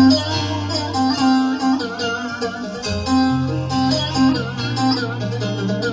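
Korg Pa5X arranger keyboard playing a Turkish-style tune: a plucked-string lead melody over held bass notes, which change about three seconds in.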